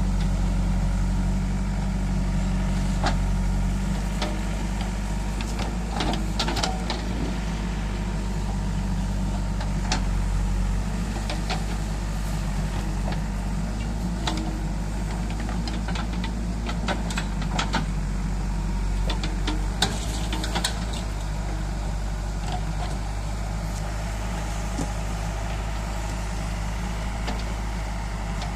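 JCB 3DX backhoe loader's diesel engine running steadily under load as the bucket digs out a coconut tree's root ball. Scattered sharp clicks and knocks from the digging come through over the engine.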